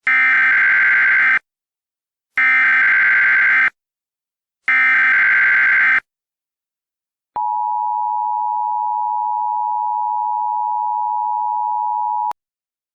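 Emergency Alert System tones opening a new alert. First come three bursts of the SAME header's harsh data screech, each about a second and a half long with roughly a second between them. Then the steady two-tone attention signal sounds for about five seconds and cuts off suddenly.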